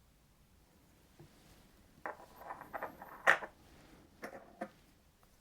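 Old dug-up coins being handled and set down on a surface: a run of small clicks and a brief rattle starting about two seconds in, one sharp click the loudest, then a couple of single clicks near the end.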